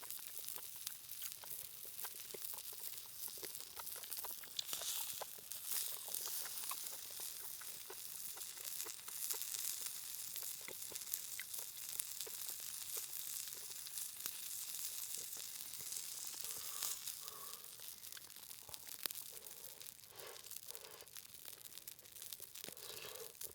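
Meat sizzling on a hot stone over a campfire: a steady hiss full of small pops and crackles.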